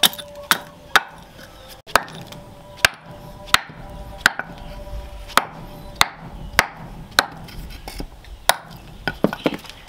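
Hammer striking a machete blade in steady, sharp blows about every two-thirds of a second, seating the blade in its wooden handle. Some blows leave a faint metallic ring, and a quick run of lighter taps comes near the end.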